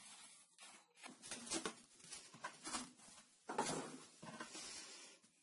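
Handling noises on a wooden tabletop: a plastic glue bottle being uncapped, then a thin plywood fretwork panel scraping and sliding as it is picked up and turned. A series of short rustling scrapes, the loudest about three and a half seconds in.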